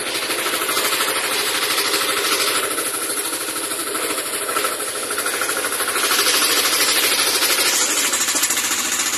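A Yanmar engine running steadily with a rapid, even beat as it drives a 3 kVA generator head.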